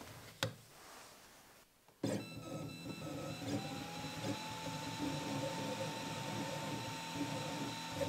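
Ortur Aufero 2 laser engraver running an engraving job: its stepper motors whir steadily as they move the laser head, starting about two seconds in after a single click and a short quiet stretch.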